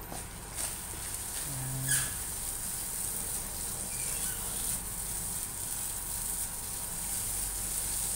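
Corned beef sizzling steadily as it fries dry in a nonstick pan, with a few clicks and scrapes of a plastic spoon stirring it against the pan, the loudest about two seconds in. The meat is being cooked down until its moisture is gone and it turns toasted.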